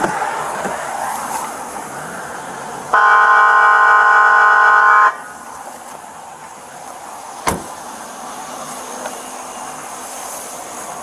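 A car horn blares once, held steady for about two seconds, over the hum of traffic. A single sharp knock follows a couple of seconds later.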